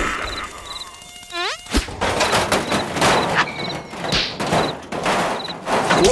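Cartoon mosquito buzzing in a run of loud, rough bursts, with a short rising squeal about a second and a half in.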